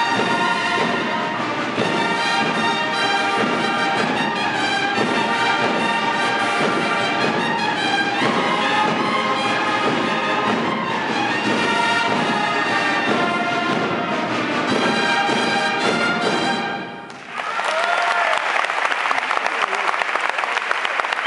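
Uniformed brass band, with trumpets, trombones and a drum, playing a sustained piece that ends about seventeen seconds in. Audience applause follows at once and carries on to the end.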